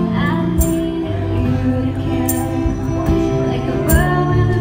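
Live acoustic band playing a slow song: a woman singing through a microphone over acoustic guitar and electronic keyboard, with a tambourine struck about every second and a half to two seconds.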